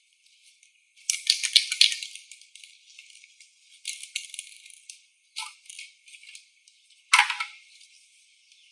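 Clattering and clicking of small hard objects being handled, in bursts: a loud cluster about a second in, shorter ones around four and five and a half seconds, and a sharp knock about seven seconds in.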